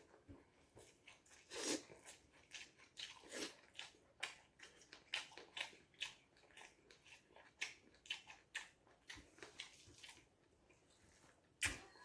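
An irregular series of short, crisp crunching clicks, a few a second.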